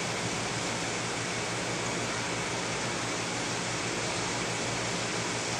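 Steady rushing noise of aquarium water circulation, with a faint low hum underneath.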